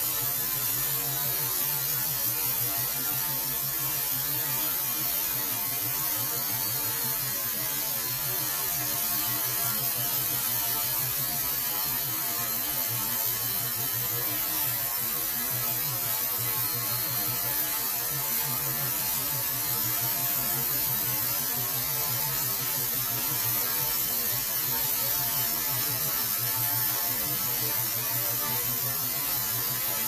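Wood-Mizer LT40 sawmill cutting, its sound slowed to quarter speed into a deep steady hum under an even hiss.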